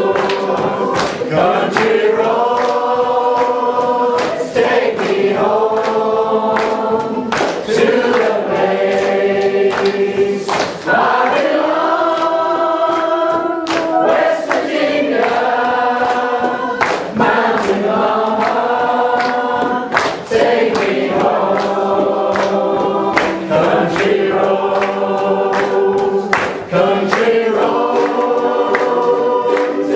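A ukulele group singing together in chorus over strummed ukuleles, with many voices holding the tune and steady rhythmic strumming.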